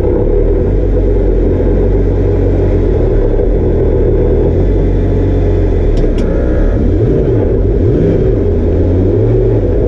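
Twin-turbo V10 of a Lamborghini Huracán race car idling loudly and steadily, heard from inside the cabin. About two-thirds of the way through, the engine note briefly rises and falls twice.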